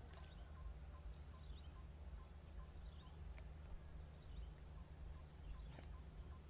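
Faint outdoor ambience: a small chirp repeating about two or three times a second, with a few short higher bird-like chirps over a steady low rumble. A single sharp click sounds about halfway through.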